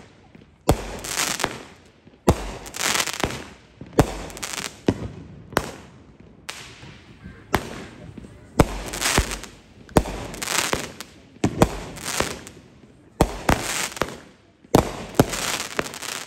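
Consumer aerial fireworks firing shot after shot: sharp bangs about once or twice a second, each trailed by a hiss lasting about a second.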